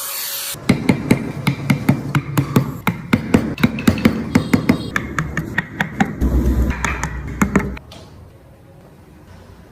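Rapid hammer taps on wood, about three a second, stopping about eight seconds in.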